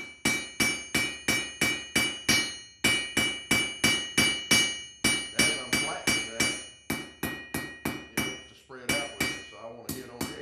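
Hand hammer striking hot quarter-inch steel bar stock on an anvil: a steady run of about three blows a second with a few brief pauses, each blow leaving the anvil ringing. The bar's end is being drawn out and flattened, ready to roll into a jelly-roll scroll.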